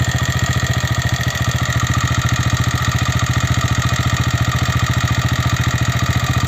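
TVS Raider 125's single-cylinder four-stroke engine idling steadily, an even pulsing beat. The owner feels the engine itself is making more mechanical noise than it should, louder than the exhaust.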